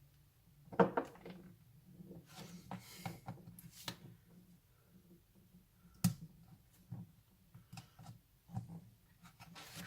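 Hands taking apart a Fujitsu Lifebook U772 laptop: scattered clicks and knocks of plastic casing and tools, the sharpest about a second in and again about six seconds in, with a stretch of scraping between about two and four seconds in.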